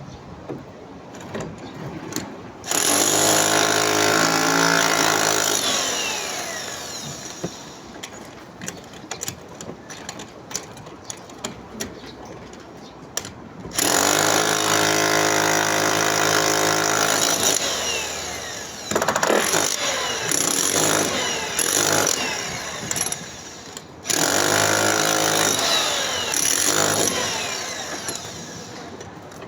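Electric demolition hammer breaking up a hollow-block and concrete wall, run in four bursts of a few seconds each that start suddenly and tail off, with scattered knocks and clatter between them.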